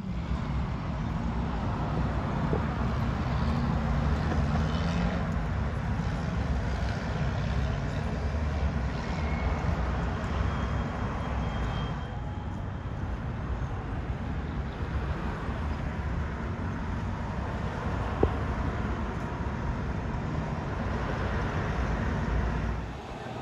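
Street traffic: car engines running and tyre noise, fairly steady throughout, with one sharp click about eighteen seconds in.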